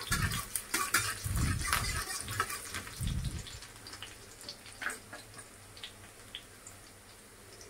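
Chopped garlic and ginger sizzling and crackling in hot oil in a kadhai over a high flame, with a few low knocks in the first three seconds or so. The crackling thins out and grows quieter toward the end.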